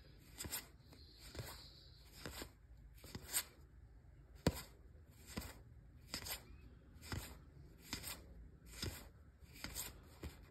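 1985 Topps baseball cards being flipped through one at a time, each card slid off the front of the stack with a short snap of card against card, about once a second.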